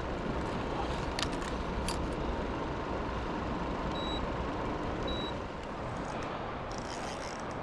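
Steady low rumble and hiss of outdoor background noise, with a few faint clicks and two short high electronic beeps about a second apart midway through.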